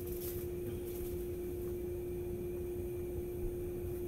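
Steady electrical hum of a kitchen appliance: one constant tone over a low rumble, unchanging throughout.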